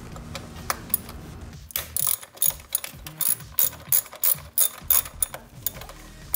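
Hand ratchet with a 10 mm socket clicking as it turns a bolt in the engine bay: a few single clicks, then from about two seconds in a quick run of ratchet strokes, about three a second, stopping shortly before the end.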